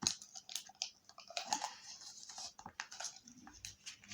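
Plastic tub and packaging being handled while dough-like slime is pried out: irregular small clicks and crackly rustling.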